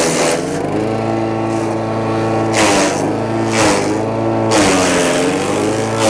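Wood chipper's Subaru single-cylinder petrol engine running at speed while green branches are fed in, its pitch sagging under load. Several short rasping bursts come from the blades chipping the wood and throwing chips out of the chute.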